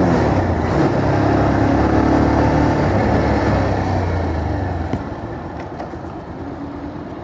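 Bajaj Pulsar 220F's single-cylinder engine running under way, with road and wind noise at the rider's position. About five seconds in the throttle closes and the engine sound drops back as the bike slows down.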